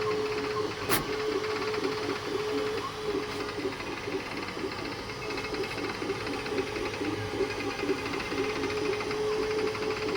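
Creality K2 Plus 3D printer running a print: its motors give a steady whine over a busy, fast-changing run of short moves, with one sharp click about a second in. The owner hears it as a strange noise and wonders whether a slow print-speed setting causes it.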